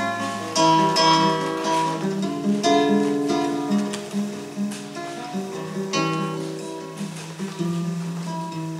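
Acoustic guitar playing an unhurried instrumental introduction, plucked and strummed chords ringing one after another and fading a little toward the end.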